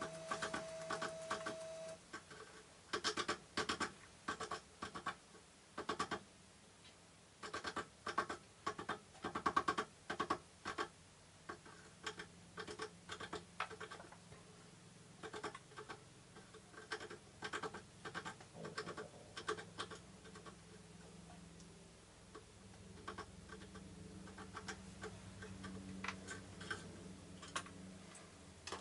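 Irregular runs of sharp taps and clicks, several a second in bursts and spread through the whole stretch. A steady beep tone sounds for the first two seconds, and a low hum comes in about two-thirds of the way through.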